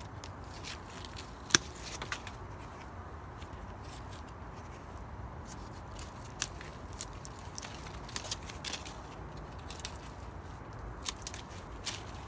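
Hand pruning shears snipping side branches off a young loquat tree: a series of sharp, separate clicks, the loudest about a second and a half in, with others scattered through the rest.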